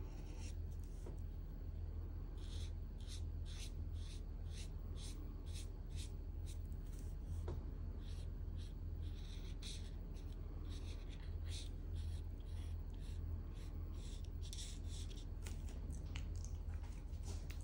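Broad felt-tip marker nib stroking back and forth across paper to fill in shading, a quick scratchy stroke about two to three times a second, with a brief pause about two-thirds of the way through. A steady low hum lies underneath.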